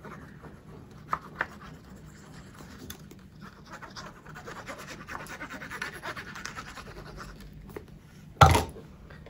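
Nozzle of a liquid glue squeeze bottle dragged over card stock while drawing lines of glue: a faint scratchy rustle with small clicks. A short, loud thump comes near the end.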